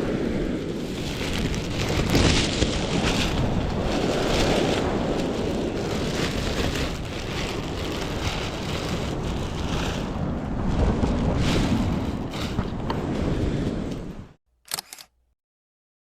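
Wind buffeting the microphone over the surf on the beach, a loud rough rushing with gusts. It cuts off suddenly about two seconds before the end, with one short blip, then silence.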